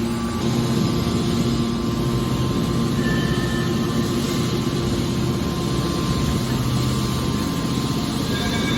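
Hydraulic baling press for aluminium cans running: a steady machine drone with a constant low hum and a few held tones.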